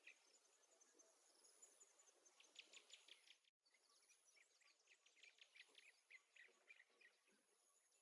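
Faint background of small birds chirping in quick clusters of short notes, over a thin, high, steady trill. The sound cuts out completely for an instant about three and a half seconds in.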